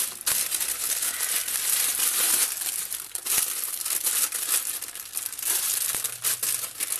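Plastic packaging crinkling and rustling under the hands, with many small crackles: a grey poly mailer bag is pulled open, then a clear plastic bag is handled.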